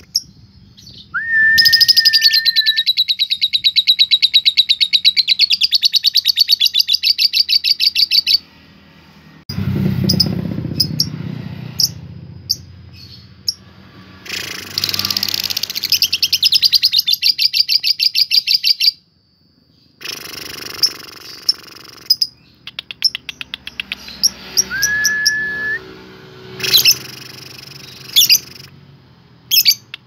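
Fischer's lovebirds calling: a short whistled note, then long runs of very rapid chattering trill ('ngekek') lasting several seconds each, with shorter bursts and another brief whistle later. A low rumble comes in about a third of the way through.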